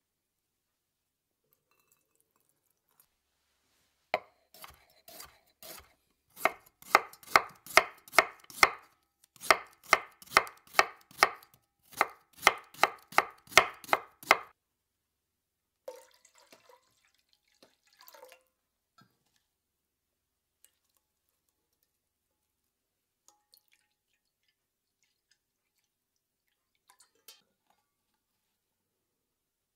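Kitchen knife slicing fresh ginger root on a wooden cutting board: an even run of sharp knife strikes against the board, about two or three a second, starting about four seconds in and stopping about halfway through.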